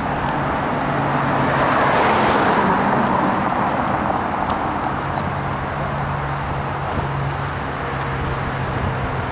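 Roadside traffic noise, with a car passing by and swelling to its loudest about two seconds in, over a steady low hum.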